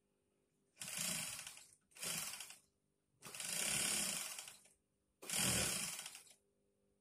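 Industrial sewing machine stitching in four short bursts, each about one to one and a half seconds long, stopping briefly between them.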